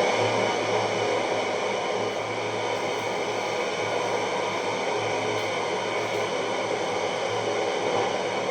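Untuned FM radio static, a steady hiss, played through a Sweton 10-inch 150-watt speaker driven by a 4440 amplifier board, with a faint low hum underneath.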